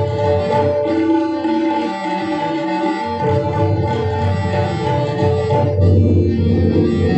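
A large tabla ensemble playing in unison, many pairs of tabla with the low bayan booming, over a sustained melodic accompaniment. The bass strokes drop out about two seconds in and come back a second later.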